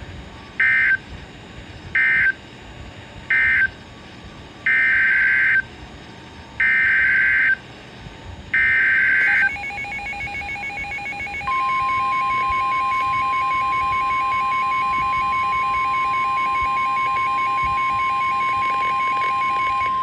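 NOAA Weather Radio alert signals coming from a S.A.M.E. weather alert radio. First come three short screeching digital data bursts, the end-of-message code closing the previous warning. Then come three longer screeching bursts, the S.A.M.E. header of the next blizzard warning. About nine seconds in, a quieter rapid beeping starts, and from about eleven seconds in the steady single-pitch NWS warning alarm tone sounds over it.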